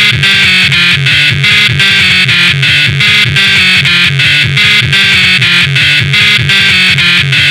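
Loud electronic tekno music with a fast, steady beat and synthesizer lines.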